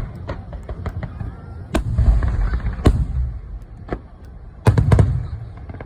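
Aerial fireworks shells bursting overhead: sharp bangs with a deep rumbling echo, the biggest a little under two seconds in, near three seconds and a quick cluster near five seconds, with lighter crackling between them.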